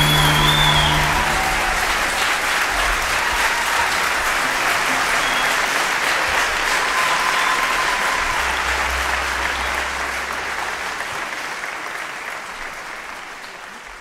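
A large audience applauding as the ensemble's last held chord dies away in the first second or two; the applause fades out toward the end.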